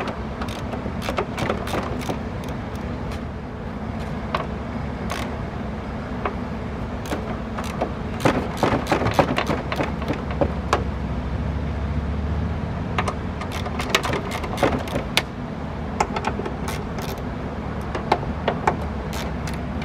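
Metal clicks and taps of a hand socket wrench working the 13 mm door-hinge bracket bolts of a Nissan Murano loose. The clicks come in irregular runs over a steady low hum.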